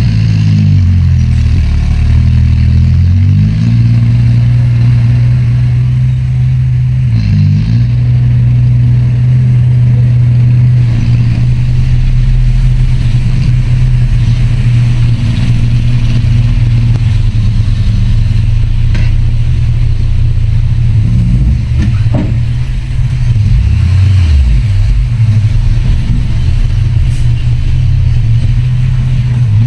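Heavy diesel engine of earthmoving machinery running steadily under load, its pitch dipping and rising again a few times as the load changes.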